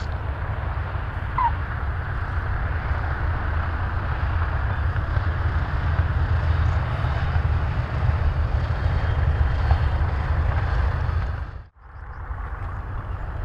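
Twin radial piston engines of a B-25 Mitchell bomber running at taxi power: a steady, deep rumble. Near the end the sound cuts out for a moment and comes back.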